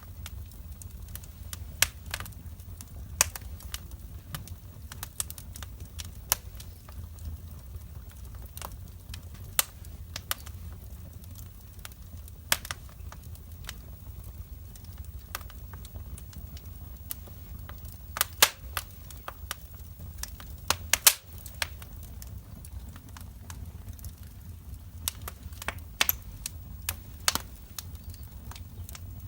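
Wood fire in a fireplace crackling: sharp, irregular pops and snaps over a low steady rumble, with a cluster of louder snaps about two-thirds of the way through.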